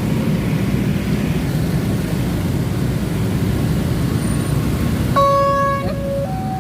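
Road traffic rumbling steadily, then about five seconds in an electronic railway level-crossing warning starts, switching back and forth between a low tone and a higher tone: the signal that a train is approaching and the barrier is about to close.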